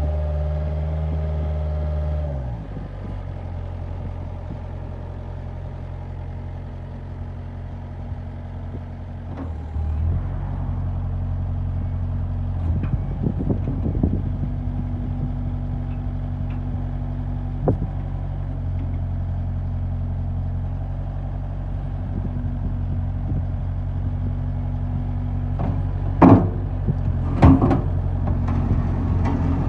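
Bobcat skid steer loader's diesel engine running, dropping to a lower, quieter speed about two seconds in and picking up again about ten seconds in. Sharp metallic knocks come now and then, the loudest two near the end.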